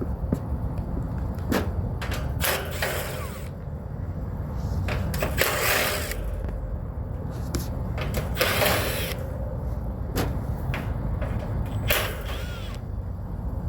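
Handling noises from work on the condenser fan motor's wiring: four rustling, scraping sounds lasting about a second each, with a few sharp clicks, over a steady low rumble.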